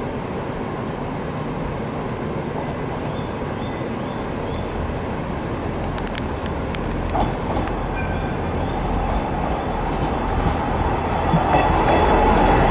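KiHa 100 diesel railcar arriving slowly at a station platform, its engine and wheel rumble growing louder as it draws near. There are a few sharp clicks about six seconds in and brief high squeals near the end as it slows past.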